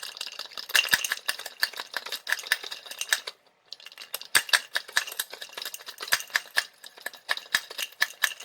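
Manual onion chopper being worked repeatedly to crush hard candies: rapid clicking and rattling of the blades and hard candy pieces in the jar, with a brief pause a little over three seconds in.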